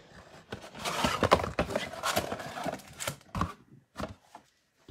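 Cardboard trading-card mega box being handled and moved, with foil card packs shifted on the table: a stretch of rustling and scraping with a few sharp knocks, the loudest about three seconds in.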